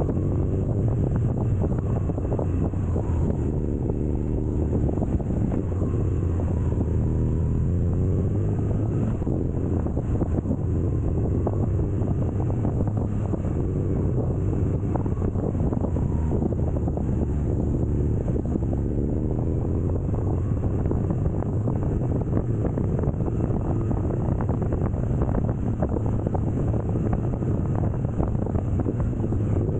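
BMW R nineT Scrambler's air/oil-cooled boxer twin running under way, with wind rushing over the microphone. The engine note rises and falls a few times as the throttle is worked.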